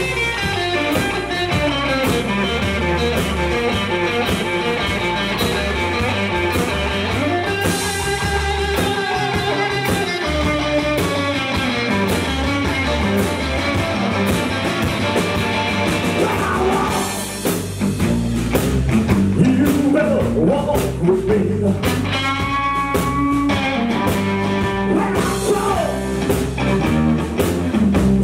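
Live blues-rock trio playing: a Gretsch electric guitar through an amplifier, with electric bass and a drum kit keeping a steady beat, and a man singing. The band briefly thins out about 17 seconds in, then comes back in full.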